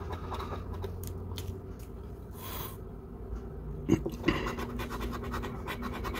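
A silver coin scratching the latex coating off a paper lottery scratch ticket in quick, repeated short strokes. There is one longer scrape about two and a half seconds in and a couple of sharper ticks about four seconds in.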